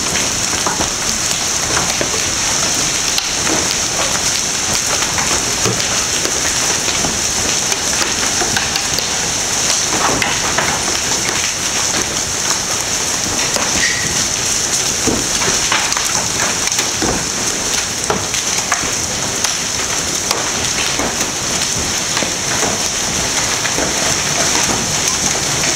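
Hailstones of golf-ball to baseball size pelting down in a steady, dense clatter of hard impacts over a continuous hiss of falling ice and rain.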